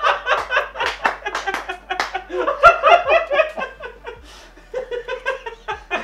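People laughing in repeated short bursts, a few voices at once.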